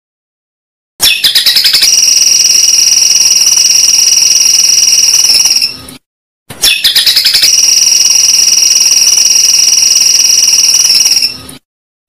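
A shrill, steady, insect-like buzzing trill. It starts about a second in with a quick run of clicks, holds one high pitch for about four seconds, fades out, and then the same bout comes a second time.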